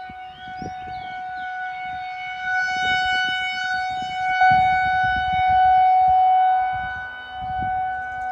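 Outdoor civil-defense warning sirens sounding a steady, held tone, more than one at once at slightly different pitches. The sound swells to its loudest about five seconds in and then fades, as a rotating siren turns away.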